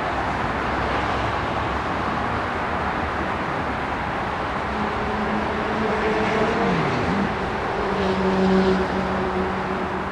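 SNCF TER 2N NG double-deck electric multiple unit rolling away down the line, a steady rushing rail noise. About halfway through a humming tone comes in, briefly dips in pitch, then holds steady and grows a little louder near the end.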